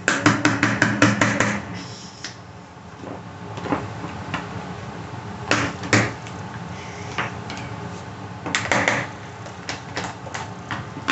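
Spoons tapping and scraping in metal baking pans while cornstarch cloud dough is stirred: a quick run of clicks and knocks at first, then scattered taps.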